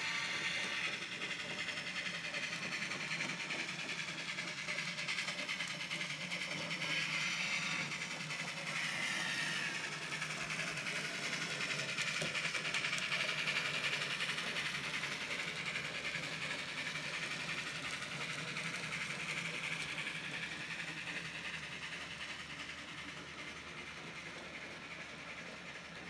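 A model steam train rolling around a curve of track: a steady whirring of wheels and motor, with a high note that slowly sways up and down in pitch. It fades over the last few seconds as the train moves off.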